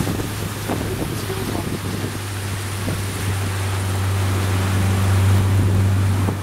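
Motor of an open fibreglass river boat running steadily under way, its low hum growing louder about halfway through, with water rushing past the hull and wind buffeting the microphone.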